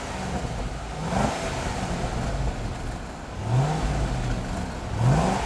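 Holden VZ Commodore SS V8 running at idle through its twin tailpipes, with the throttle blipped three times about two seconds apart; each rev rises quickly and drops back to idle.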